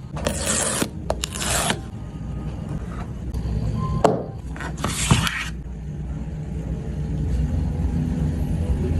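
Phone packaging being handled: three short rubbing, scraping strokes of cardboard or wrapping, with a couple of sharp taps in between, over a steady low rumble.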